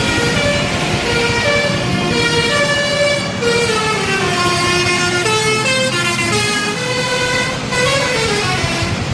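Indonesian bus 'telolet' musical horn playing a tune: a string of held horn notes stepping up and down in pitch, with a few sliding notes in the middle and near the end, over vehicle noise.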